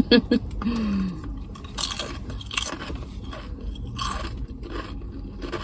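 Crunchy food being bitten and chewed close to the microphone, with irregular crisp crunches every second or so.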